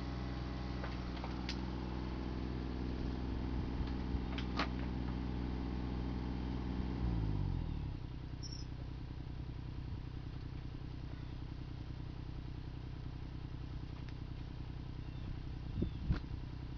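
Bobcat E32 mini excavator's diesel engine running steadily at working speed; about seven seconds in its note drops and it settles to a lower idle. A few sharp knocks come in the first five seconds and again near the end.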